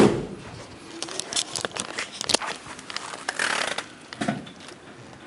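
A 1962 Corvette's door shut with one loud thud, followed by a scatter of clicks and rustling handling noise.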